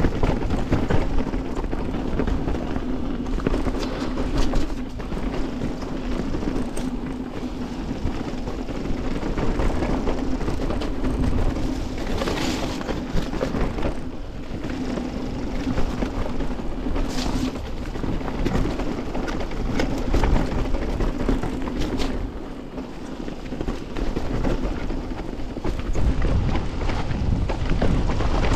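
Canyon Torque:ON electric mountain bike riding down a dirt singletrack: tyres rolling over dirt and dry leaves and the bike rattling over bumps, with a steady low hum and sharp knocks now and then, the loudest two about halfway through.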